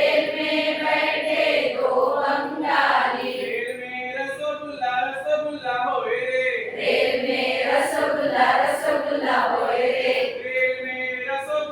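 A group of voices singing a song together in chant-like unison.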